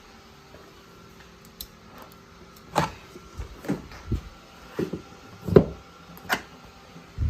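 A run of irregular knocks and clunks, about eight in four seconds starting about three seconds in, over a faint steady hum.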